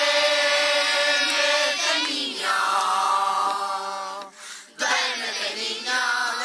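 A song with long, drawn-out sung notes, choir-like, in three held phrases with a short break about four and a half seconds in.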